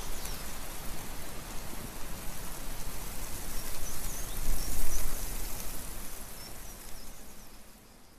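Steady outdoor ambience hiss with a few faint high bird chirps. It swells briefly in the middle and fades out near the end.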